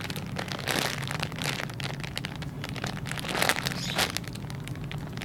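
Plastic packaging crinkling irregularly as squishy toys are handled and shuffled, over a faint steady low hum.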